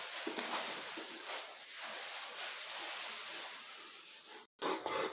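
Soft, steady rustling hiss with faint ticks, from dyed sawdust being sifted through a small hand-held mesh strainer onto a sawdust carpet. It cuts off abruptly about four and a half seconds in.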